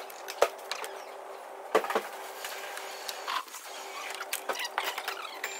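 Scattered clicks and knocks of hands handling wiring and parts in a car's engine bay. There is a sharp tap about half a second in, two knocks near two seconds, and a quick run of small ticks near the end, over a faint steady hum.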